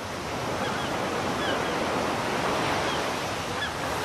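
A steady rushing noise that swells over the first second, with a few short, high chirps scattered over it.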